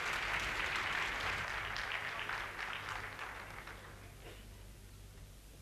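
Theatre audience applauding, the clapping thinning out and dying away over about four seconds, leaving a faint steady low hum.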